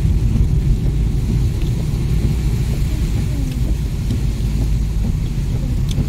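Car driving on a wet road, heard from inside the cabin: a steady low rumble of engine and tyres.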